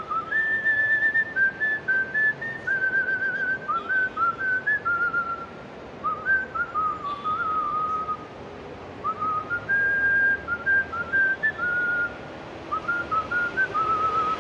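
A man whistling a tune through pursed lips: a string of short, wavering notes hopping up and down in pitch, broken by a few brief pauses.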